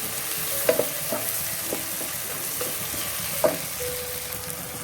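Chopped onion, tomato, ginger and garlic sizzling in hot oil in a pan, with a spatula stirring and scraping against the pan a few times.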